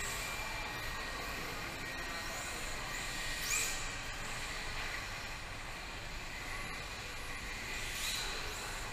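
Electric RC drift cars, one a Yokomo YD-2ZX, running a tandem on a tile floor: high motor whines rising sharply in pitch with throttle blips about 2.5, 3.5 and 8 seconds in, the one near 3.5 seconds the loudest, over a steady hiss.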